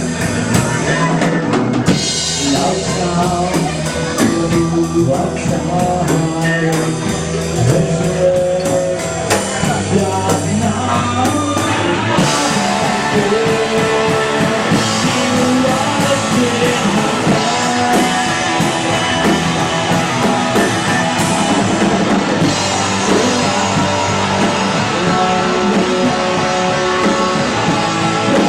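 Live rock band playing a song: drum kit and guitar with a voice singing, the cymbals coming in fuller about twelve seconds in.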